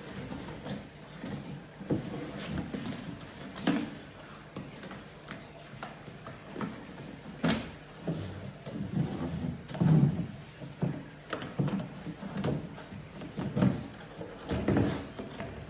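Wax-dipped corrugated cardboard carton being folded and assembled by hand: irregular scrapes, creases and knocks as flaps are bent and pushed into place and the box is set against a wooden tabletop.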